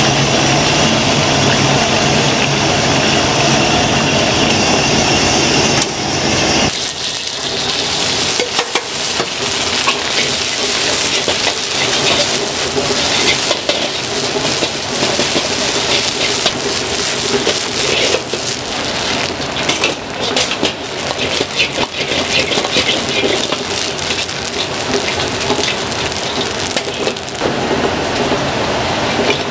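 Battered grouper pieces deep-frying in hot oil in a wok, a steady sizzle. About six and a half seconds in the sizzle stops abruptly, and a metal ladle scrapes and clatters against the wok as a sauce is stirred and the fried fish tossed through it.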